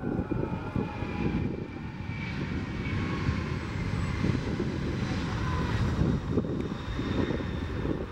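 Airbus A300-600ST Beluga's two General Electric CF6-80C2 turbofans at takeoff power as the jet rolls down the runway and lifts off. The engines make a steady deep rumble with a faint high whine above it.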